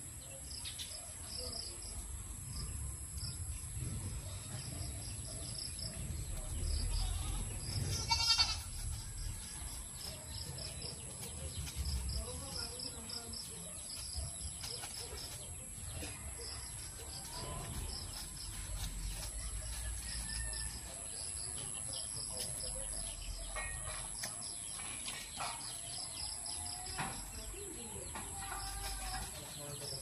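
Goats, a nanny and her kids, bleating a few times: one short call about eight seconds in and several more near the end, over a steady, high, pulsing background sound.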